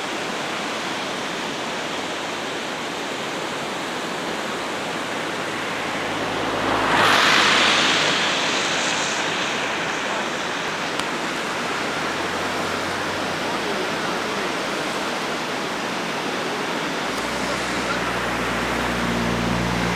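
River in flood rushing past under a bridge, a steady loud rush of water. About seven seconds in a louder whoosh swells and fades, and in the last few seconds a low vehicle engine hum comes in over the water.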